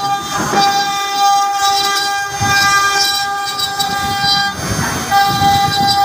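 CNC router spindle running with a steady high-pitched whine while its bit carves into wood, over a rough, uneven cutting rumble. The whine breaks briefly into a rushing noise about four and a half seconds in, then resumes.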